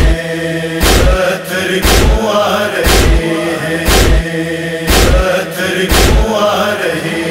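A wordless chorus hums a sustained mourning chant over loud matam chest-beating thuds about once a second; the beats stop about six seconds in and the humming carries on alone.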